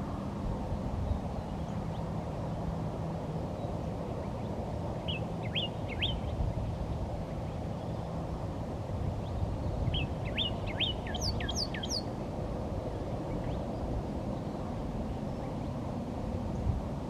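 Short bird calls over a steady low background rumble: three quick chirps about five seconds in, then a run of about six downward-sweeping notes around ten seconds in, followed by a few higher, thinner notes.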